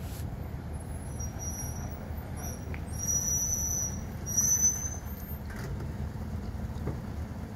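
Police SUV's engine running with a steady low rumble, with short high-pitched squeals that are loudest about three and four and a half seconds in.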